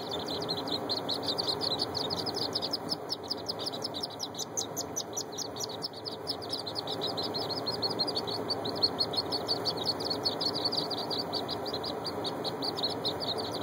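A crowd of wood duck ducklings peeping nonstop, many short high calls overlapping several times a second, over a low steady background noise.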